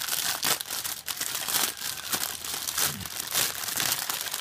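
Clear plastic bags holding model-kit runners crinkling and rustling as they are handled and lifted out of the box, a steady run of irregular crackles.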